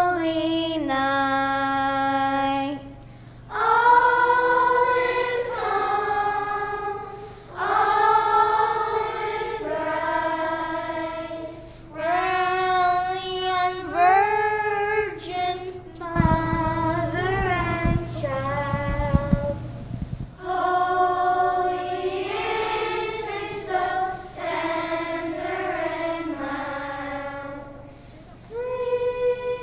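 A voice singing a slow melody in phrases of held notes with short pauses between them. A few seconds of rough noise sound under the singing about halfway through.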